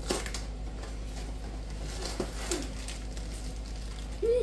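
Cardboard box of brownie mix being opened and the plastic bag of mix pulled out: scattered crackles and rustles of cardboard and plastic. A brief hummed voice sound comes near the end.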